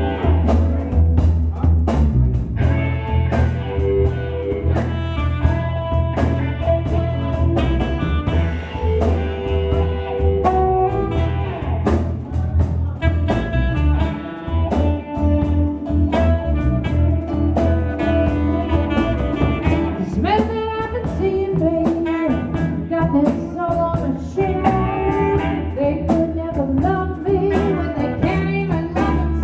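Blues band playing live: a guitar and shifting melody lines over a heavy bass line and a steady drum beat.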